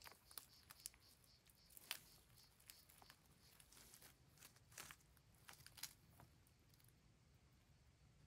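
Faint, irregular small clicks and rustles of hands working on the end of an electrical cable and its black plastic conduit, thinning out after about six seconds.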